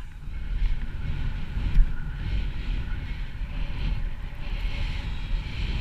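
Wind buffeting the microphone of a camera carried by a skier descending fast through off-piste snow, with a steady hiss of skis sliding through the snow. The sound swells and eases in small gusts.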